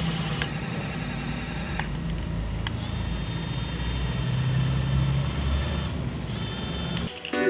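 Small geared DC motors of a homemade remote-control excavator running steadily: a low rumble with a faint high whine. Music starts near the end.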